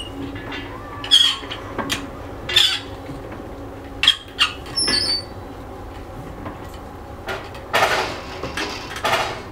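Hand-cranked winch of a manually operated railway level-crossing barrier being turned, its gear wheel, wire cables and pulleys squeaking in irregular bursts, the longest near the end.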